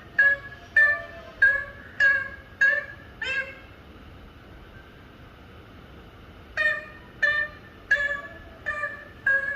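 Pet parrot giving a string of short, evenly spaced, instrument-like calls, about one and a half a second. The calls break off for about three seconds in the middle, then start again.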